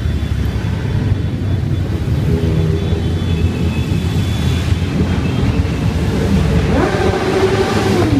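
A procession of motorcycles and sidecar outfits riding past, their engines running in a steady low rumble. Near the end one engine rises in pitch, holds, then starts to fall.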